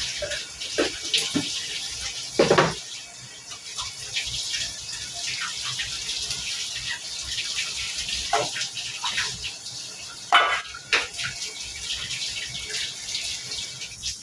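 Kitchen tap running into a stainless steel sink while dishes are rinsed, a steady splashing hiss. Several knocks and clatters as a plastic container and a strainer are handled in the sink, the loudest about two and a half seconds in.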